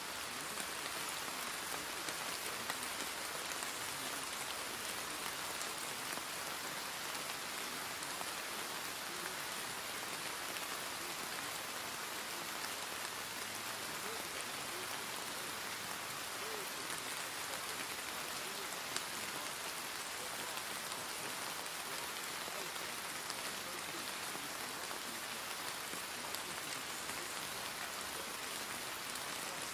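Steady rain falling: an even hiss with a few sharper drop ticks.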